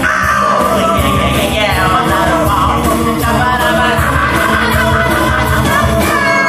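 Live musical performance: a chorus of male voices singing together over a steady, quick hand-drum beat, with a low bass line that drops out near the end.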